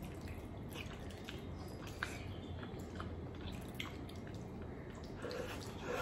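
Faint wet clicks and smacks, a few scattered ones standing out, over a low steady hum.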